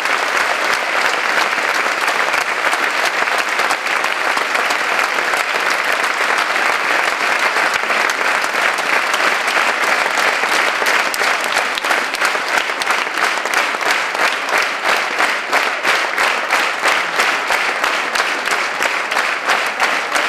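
Theatre audience applauding at a curtain call, dense and continuous at first, then falling into rhythmic clapping in unison in the second half.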